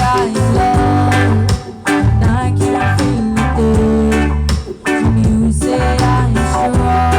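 Live band music, with electric guitar and bass guitar playing over a steady beat.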